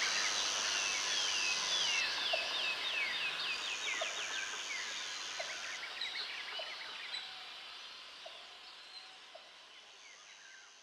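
Many birds chirping, quick calls that sweep down in pitch, over a steady high hiss, fading out toward the end.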